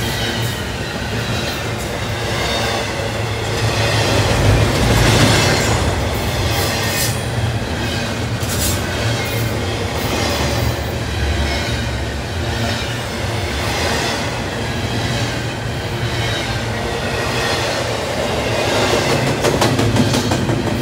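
Double-stack intermodal well cars rolling past on steel wheels: a steady loud rumble and hiss of wheels on rail, with bursts of sharp clacking.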